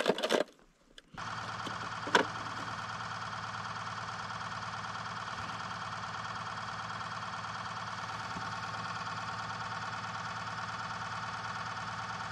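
A steady, unchanging hum with a whine in it, starting about a second in after a brief moment of near silence. A single sharp click comes about two seconds in.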